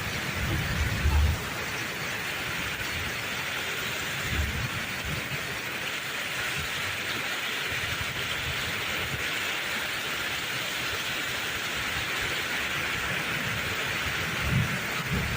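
Heavy rain pouring steadily in a thunderstorm, with short low rumbles about a second in, around four seconds and again near the end.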